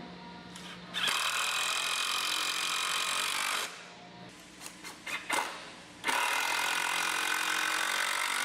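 Power drill driving screws into cedar logs, running twice for about two and a half seconds each, with a few light clicks in the pause between.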